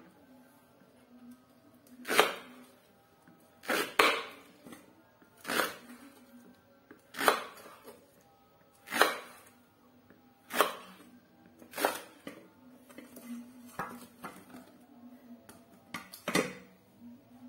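Kitchen knife chopping through taro stalks onto a wooden cutting board: a sharp knock with each cut, about one every second and a half, some cuts doubled.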